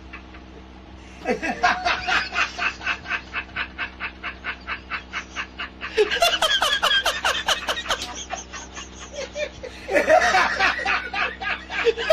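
Laughter in three rapid, pulsing bouts of "ha-ha" sounds, the first starting after about a second, then again about midway and near the end, over a faint steady hum.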